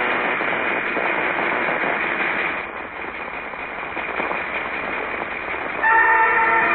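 Cartoon sound effect of a ray machine's electrical crackling, a dense steady sizzle of sparks. Near the end it changes suddenly to a louder sustained tone of several pitches as the ray beam fires.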